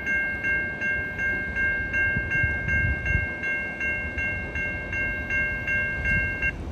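Railroad level-crossing warning bell ringing in an even, quick repeat of about three dings a second, over a low rumble. The bell stops shortly before the end.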